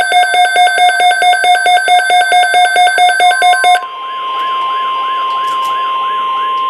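Weather radio alert signals: a rapid, evenly pulsing electronic alarm beep stops nearly four seconds in. A steady NOAA Weather Radio 1050 Hz warning alarm tone follows, with a looping, warbling siren-like tone over it, announcing a new alert message.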